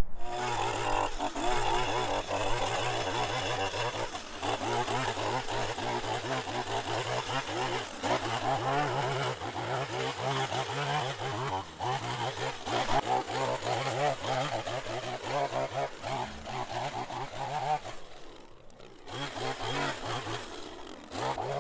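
Small engine of a power yard tool running steadily, its note wavering a little with load, then dropping off near the end.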